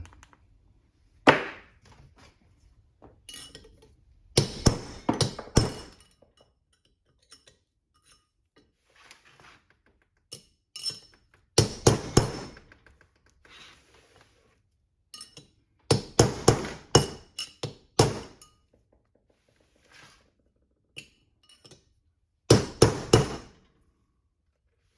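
Hammer striking a long steel punch to drive a bearing race out of a Toyota 8-inch differential: sharp metallic blows with a ringing tone. A single blow comes about a second in, followed by four quick runs of blows with pauses between.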